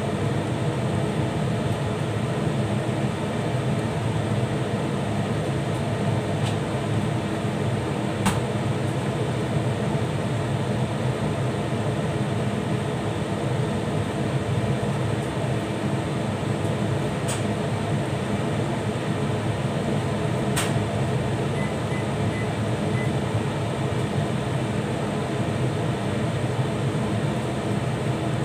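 Steady low-pitched rushing hum of a fan, with three faint clicks spaced through it.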